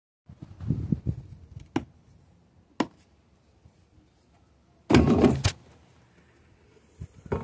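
Handling noises: a few low knocks, two sharp clicks, then a louder half-second scraping clatter about five seconds in.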